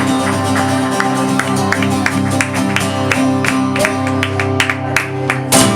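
Live band playing the instrumental close of a pop song: held chords and guitar over a steady beat. There is a strong accented hit near the end.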